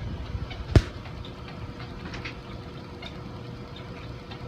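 Washing machine running with a steady hum and a faint steady tone; a single sharp thump sounds about a second in.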